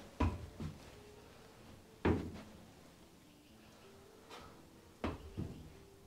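A few dull knocks and thumps, like objects bumped or set down. There is a pair at the start, a louder single knock about two seconds in, and another pair near the end.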